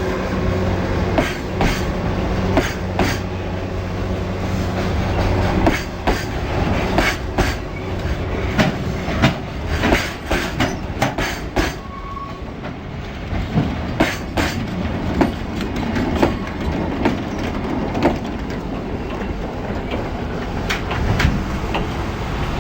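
A freight train passing over a level crossing, its wheels clicking irregularly over rail joints and the crossing, with a short high wheel squeal about halfway through. A steady low hum runs under it for the first six seconds.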